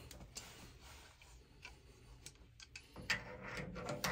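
Light scattered clicks and ticks of a brass drain valve being turned on its threads at a water heater's drain port and pliers being handled, growing busier about three seconds in, with a sharper click at the very end.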